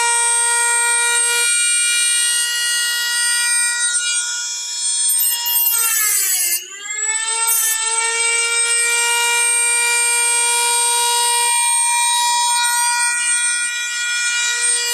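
Dremel rotary tool with a cutoff wheel running at a steady high whine, grinding out cracks in an old car steering wheel to widen them for filling. About six seconds in the motor slows and then speeds back up, and at the very end it begins to wind down.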